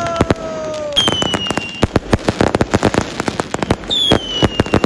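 Dense aerial fireworks going off overhead: a rapid, irregular stream of loud bangs and crackles. Whistling fireworks cut through it, each whistle falling slightly in pitch: a lower one ending about a second in, then a high one just after, and another high one near the end.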